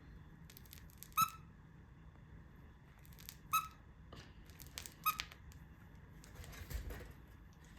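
Squeaker in a plush dog toy squeaking three times, each a short, sharp squeak about two seconds apart, with a soft rustle near the end.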